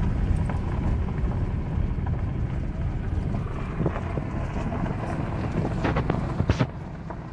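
Car driving slowly on a dirt road, heard from inside the cabin: a steady low rumble of tyres and engine, with a few sharp knocks near the end.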